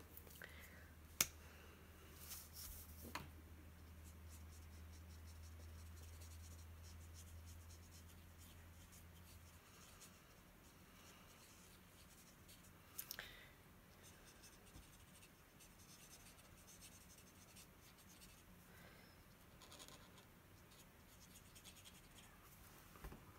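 Faint scratching of a felt-tip alcohol marker (Stampin' Up! Blends) colouring on cardstock, with a few sharp clicks as the markers are handled: two in the first three seconds and one more past halfway.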